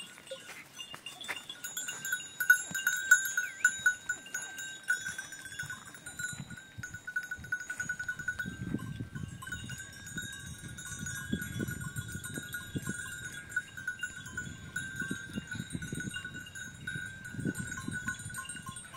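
Bells on a herd of goats clanking and jingling as the animals move, with the loudest strikes about two to three seconds in.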